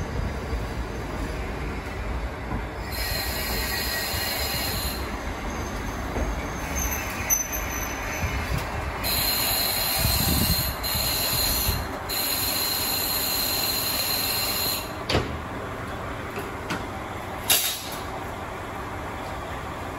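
KiHa 40 diesel railcar pulling into a station platform, its engine rumbling as high-pitched squealing rises and falls while it brakes. A couple of short sharp noises come near the end as it draws to a stop.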